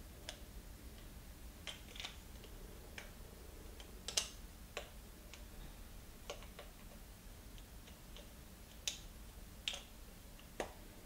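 Light, irregular clicks and taps of a SRAM XX1 rear derailleur's metal and plastic parts being handled and fitted together by hand. The sharpest click is about four seconds in, and a few more come near the end.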